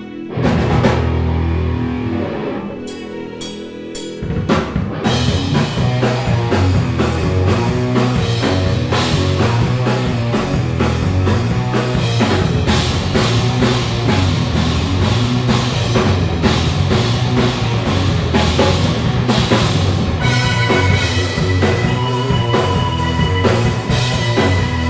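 Instrumental rock band playing live on drum kit, extended-range electric guitar, tapped touch-style guitar and keyboards. A big accented hit about half a second in rings out over held low notes, a few drum hits follow around three to four seconds in, then the full band drops into a steady driving groove; a high held keyboard note joins near the end.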